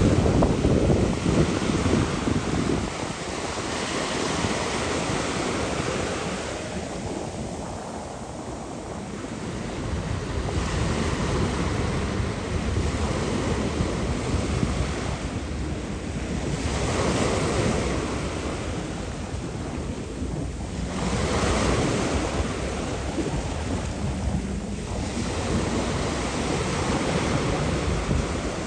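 Wind buffeting the microphone over rushing water, swelling and easing every few seconds.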